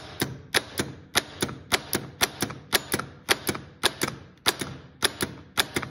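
Starter solenoid on a Kawasaki-engined mower starter clicking over and over, about four sharp clicks a second, as a jumper wire is tapped to the battery post. The plunger pulls in, but the contact disc inside is not passing power to the motor terminal, so the starter motor does not turn: a failed solenoid.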